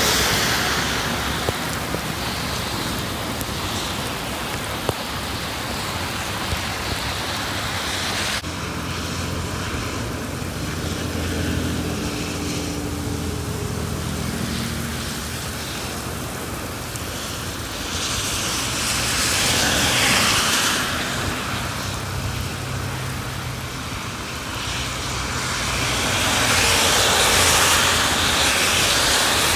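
Traffic passing in heavy rain on a wet interstate: tyres hiss through spray on the road, swelling twice in the second half as vehicles go by. A tractor-trailer's engine drones low in the middle.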